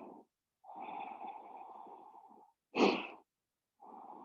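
A person breathing audibly close to the microphone, slow and deep: a long breath, a short sharp intake of breath about three seconds in, then another long breath.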